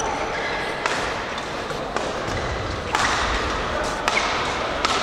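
Badminton rally sounds: a handful of sharp racket strikes on the shuttlecock, spaced irregularly, with short high squeaks of court shoes on the sports floor.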